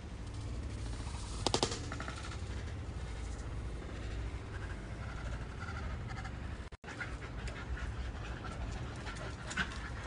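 Dogs panting as they play, with a short rapid burst of sharp clicks about a second and a half in and a steady low rumble underneath.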